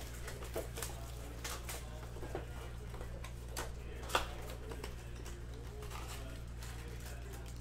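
Hands opening a cardboard trading-card blaster box and sliding out the packs: scattered light clicks and rustles of cardboard, the sharpest just after four seconds in, over a steady low hum.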